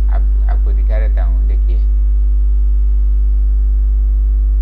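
Loud, steady electrical mains hum in the recording: a low buzz with a ladder of evenly spaced overtones. A man speaks a few brief words during the first two seconds.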